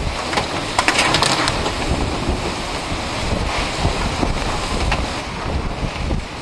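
Hurricane-force wind buffeting the microphone as a constant rushing noise, with a brief burst of crackling about a second in.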